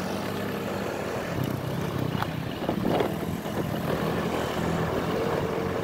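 A motor vehicle's engine running steadily, with a rushing noise over it and a few light knocks.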